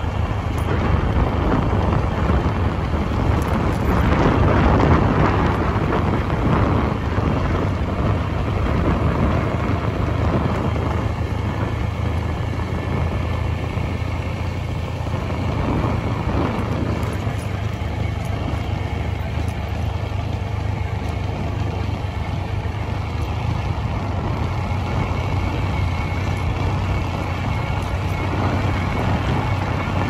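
Steady low rumble of a running motor vehicle, continuous and unbroken.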